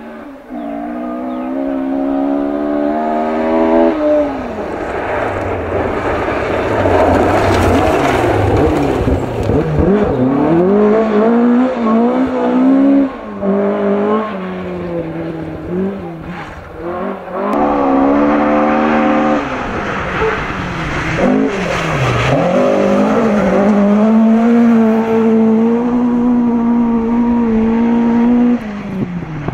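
Ford Escort Mk1 rally cars driven hard on gravel. The engine note repeatedly climbs under full throttle, breaks off at gear changes and lifts, then rises again, with a stretch of gravel and tyre noise partway through. Near the end the revs are held high for several seconds, then fall away.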